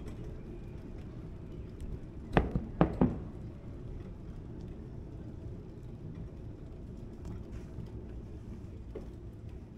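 A quick run of sharp knocks about two and a half seconds in, three loud ones within about a second, over a steady low rumble of street ambience.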